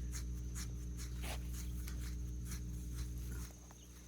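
Soft, irregular scratching and rustling of a pig rooting in the dirt, over a steady low hum that drops off about three and a half seconds in.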